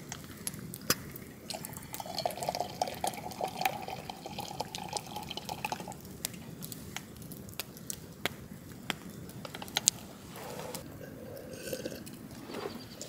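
Campfire crackling, with sharp pops and snaps at irregular moments. Ducks quack in the background: a long run of calls from a couple of seconds in to about six seconds, and a shorter one near the end.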